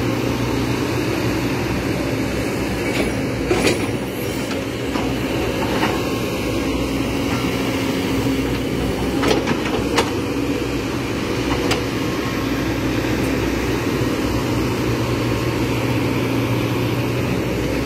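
Kobelco SK210 excavator's diesel engine running steadily, with a few sharp knocks, two of them close together around the middle.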